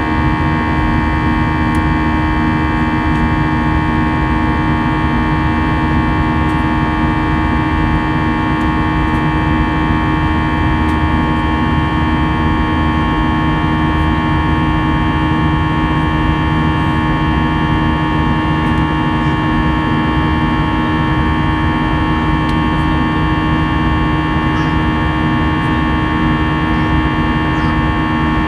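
Steady drone of an Airbus A320-200's jet engines heard inside the front of the cabin: a constant rushing hum with several fixed whining tones, unchanging in level.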